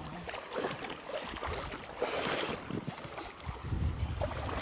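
Wading through a shallow stream: irregular splashing and sloshing of water around the legs, with wind rumbling on the microphone from about three and a half seconds in.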